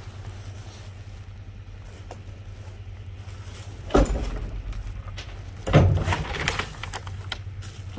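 Debris in a dumpster being shifted and stepped on: a loud thud about four seconds in and another just before six seconds, followed by a couple of seconds of crackling and rustling of plastic and wood, over a steady low hum.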